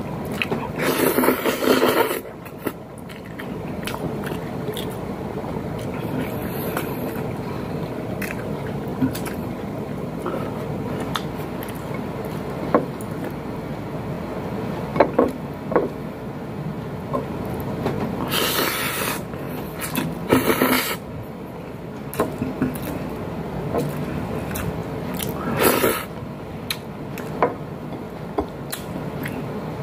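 Close-up eating sounds of a man eating noodles and rice with his hands: chewing, lip smacks and small clicks, with four short, louder slurps.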